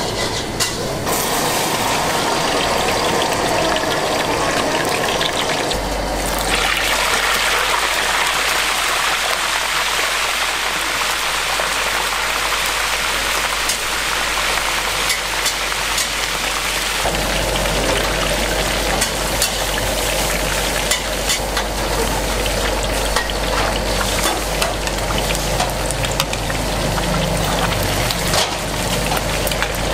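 Whole fish deep-frying in a wok of hot oil: a loud, steady sizzle full of fine crackles, with a low steady hum underneath.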